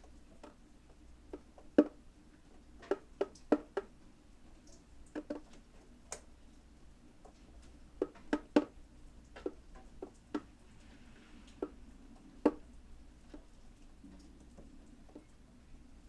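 Rainwater dripping, single drops falling at irregular intervals with short quick runs of several drops, each a sharp little plink.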